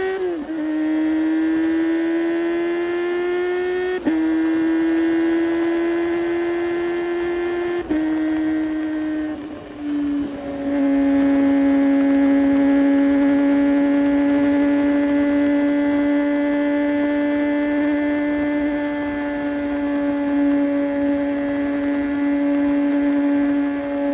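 Kawasaki Ninja ZX-25R's inline-four engine at high revs through an aftermarket Yoshimura muffler, a high, buzzy note while riding. The pitch creeps upward, broken briefly about four and eight seconds in, dips for a moment near ten seconds, then holds steady from about eleven seconds on.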